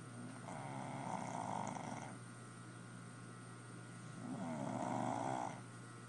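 A sleeping dog snoring: two long, rasping snores about four seconds apart, each lasting under two seconds, over the steady hum of an air conditioner.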